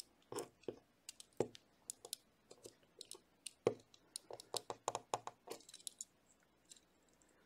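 Irregular small clicks and taps of a die-cast Hot Wheels car's metal body and plastic base being handled and pried at, testing whether the drilled-out rivets let it come apart; the rivets still hold it together.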